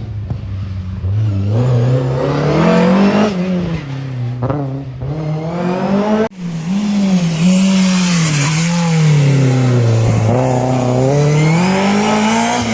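Historic rally car engine at full throttle, revving up and dropping back again and again as the driver shifts gears and lifts for bends. The sound breaks off abruptly about six seconds in, then an engine note carries on in the same way.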